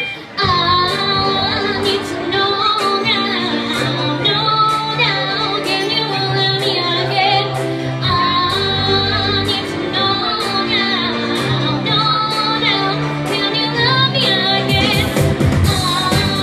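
A young female singer singing into a microphone over a pop backing track with a steady beat, both amplified through PA speakers. The music starts about half a second in after a short gap.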